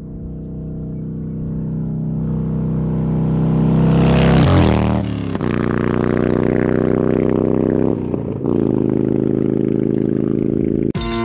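Harley-Davidson V-twin motorcycle engine under throttle, growing steadily louder to a peak about four and a half seconds in, then running hard with two brief drops in level like gear shifts. Music starts just before the end.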